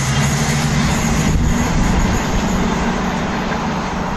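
CrossCountry Voyager diesel multiple unit running away down the line after passing at speed: a steady drone from its underfloor diesel engines over the rush of the train, easing slightly over the last two seconds.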